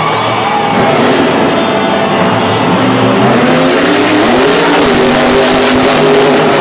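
Son-uva Digger monster truck's supercharged V8 engine revving as the truck pulls away, climbing in pitch about three seconds in and then holding at high revs.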